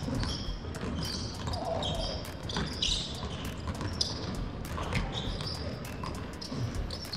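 Basketball dribbled on a gym's hardwood floor: a run of sharp, uneven bounces as the ball handler works against a defender.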